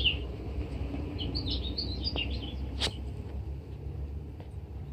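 Birds chirping in a quick run of short high notes for a second or so, over a steady low outdoor rumble, with one sharp click near the three-second mark.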